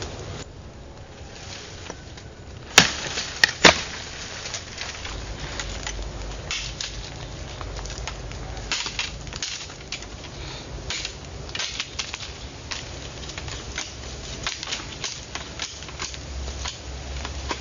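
Three sharp knocks in quick succession about three seconds in, loudest of all, followed by a long run of small irregular clicks and cracks.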